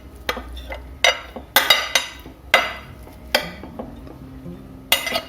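Metal spoon clinking and scraping against a pressure cooker as cooked rice is spooned in, several sharp irregular knocks. Soft background music runs underneath.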